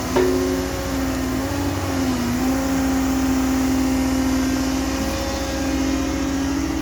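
Caterpillar M315F wheeled excavator's diesel engine running steadily under work, with a sharp knock just after the start and a brief dip in engine pitch about two seconds in.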